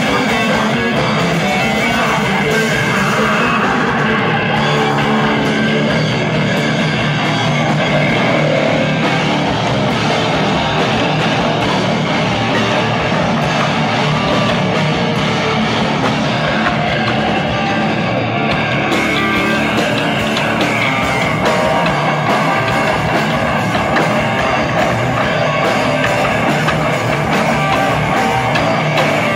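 Rock band playing loud and without a break: electric guitar, bass guitar and drum kit.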